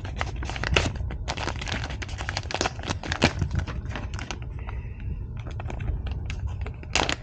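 Plastic packaging being handled and opened: irregular crinkling and rustling with small clicks and ticks, over a steady low hum.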